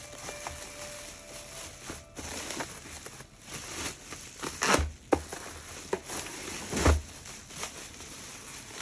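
Bubble wrap and plastic packaging crinkling and rustling as a gift is unwrapped by hand, with three louder crinkles in the second half.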